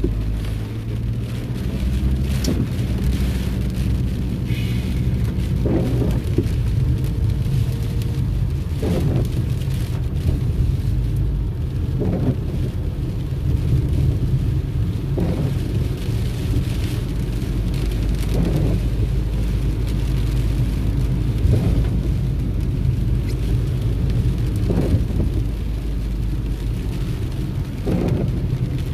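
Inside a moving car in heavy rain: a steady low rumble of tyres on the wet road, with rain on the car and the windshield wipers sweeping about every three seconds.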